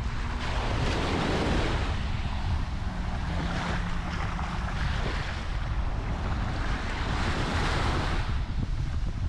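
Surf washing onto the beach, swelling twice, about a second in and again near the end, with wind buffeting the microphone throughout.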